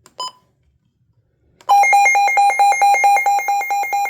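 Midland WR120 weather radio: a single key beep, then about one and a half seconds in its alert siren starts, a loud, rapidly pulsing two-tone electronic alarm set off by the radio's siren test.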